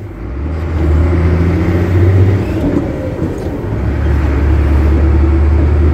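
Truck's diesel engine running under way, a steady low drone heard from inside the cab. The engine note eases about two and a half seconds in, then comes back strong about a second and a half later.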